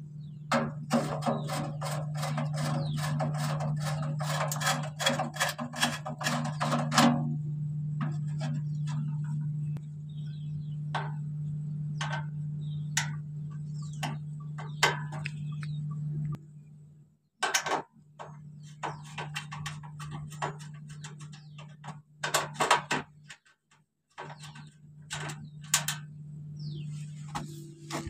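Screwdriver turning the bolts on a fogging machine's metal mesh exhaust guard: a quick run of metallic clicks and scrapes for the first several seconds, then scattered single clicks. A steady low hum runs underneath and drops out briefly twice.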